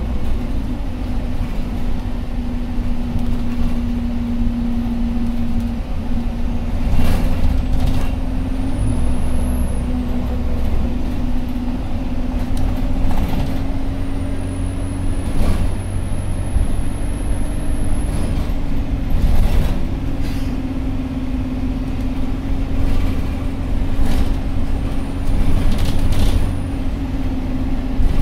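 Inside a Metroline single-deck bus on the move: a steady diesel engine and drivetrain drone, its pitch shifting a little several times. A faint, very high whine rises and then drops off about four times. Knocks and rattles from the body come every few seconds.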